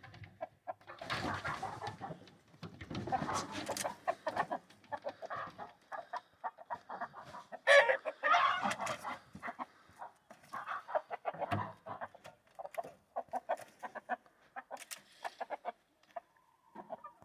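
Chickens clucking in a run of short, repeated calls, loudest about halfway through.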